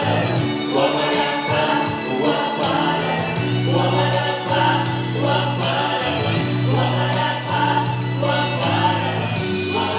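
A vocal ensemble singing a song together over an instrumental accompaniment with a steady beat and sustained bass notes.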